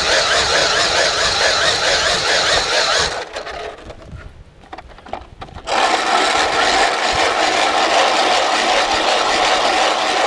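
A loud, steady mechanical running noise, like a motor or blower, that cuts out about three seconds in and starts again about two and a half seconds later.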